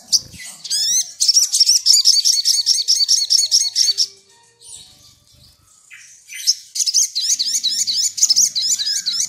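A caged sogok ontong (sogon) bird singing two long runs of rapid, repeated high notes. The first starts just under a second in and stops about four seconds in; the second starts about six and a half seconds in.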